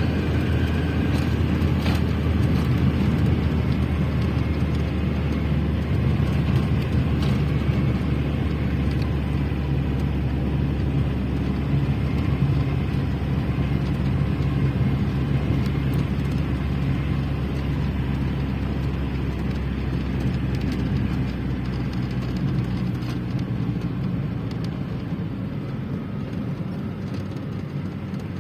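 Steady low rumble of a car on the move, engine and road noise together, easing off a little near the end.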